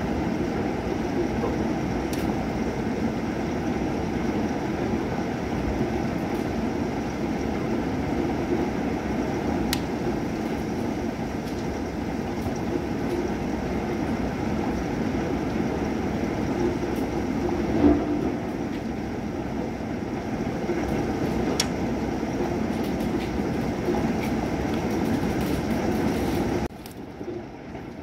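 Thunderstorm with long, continuous rolling thunder, with a brief louder clap about eighteen seconds in. The rumble drops away suddenly near the end.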